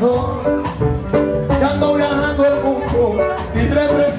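Live band music with a steady drum beat and a pitched melody, loud throughout.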